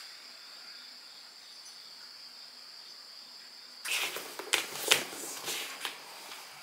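A leather handbag being handled on a desktop: rustling and several sharp clicks and knocks from about four seconds in. Before that, only a faint steady hiss with a thin high tone.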